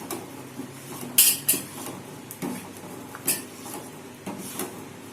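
A spoon clinking and knocking against a cooking pot, about six short sharp clinks, the loudest a little over a second in, as pepper powder is spooned into the kanji.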